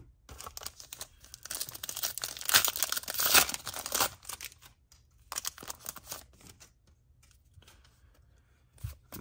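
Foil wrapper of a 2022 Topps Pro Debut baseball card pack being torn open and crinkling. The crinkling is loudest in the first four seconds, and there is a shorter burst of it a little after five seconds in.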